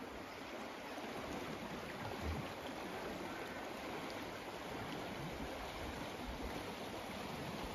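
River water rushing steadily past the stone piers of a bridge: a broad, even rush of flowing water.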